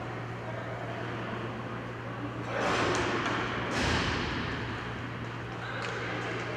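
Inline hockey rink during play: a steady electrical hum under the general noise of the game. Two louder swells of noise come about three and four seconds in, the second with a low thud, then die away.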